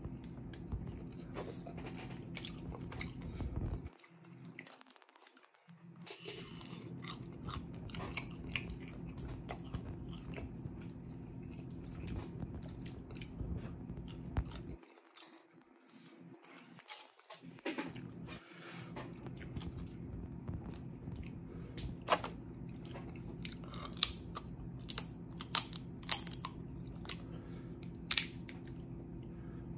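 Close-miked eating of a seafood boil: wet chewing with crunching and the sharp cracks and snaps of snow crab leg shells being broken open, with a cluster of louder cracks in the last several seconds. A steady low hum runs underneath and drops out twice.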